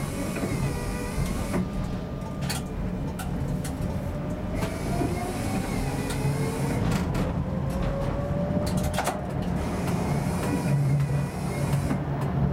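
Tram running along the rails and picking up speed, heard from the driver's cab: a steady low rumble of wheels on track, a faint whine rising in pitch through the middle, and scattered clicks and knocks.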